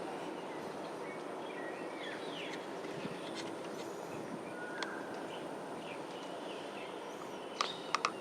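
Several birds giving short, scattered calls and chirps over a steady background hum, with a quick cluster of sharp chirps near the end.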